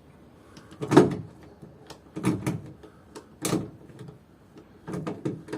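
Hand rivet gun being worked to set a pop rivet holding the window regulator in the car door: a run of sharp metallic clicks and clunks, one or two a second, the loudest about a second in.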